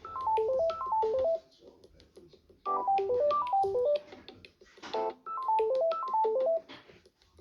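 Samsung Galaxy A71 ringtone: a short melody of quick notes stepping mostly downward, played three times with a pause after each.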